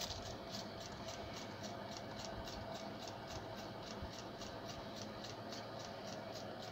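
Quiet room tone: a faint steady hum with soft, regular ticking about three times a second.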